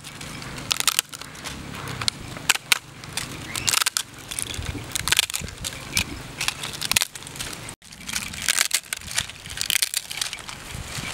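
Brittle dried tofu-skin (yuba) sheets cracking and crunching as they are snapped apart by hand, in quick irregular snaps with short pauses.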